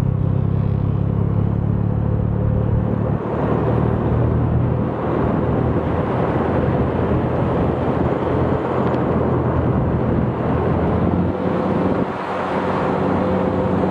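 Motorcycle engine running while riding along a road, with wind and road noise. Its steady hum gives way to a rougher, even rushing noise about three seconds in, and the hum returns near the end.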